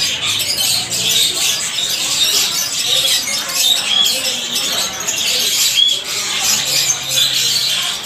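Dense, continuous chatter of many caged budgerigars and other small parrots, countless short chirps and squeaks overlapping, with an occasional clearer whistled note.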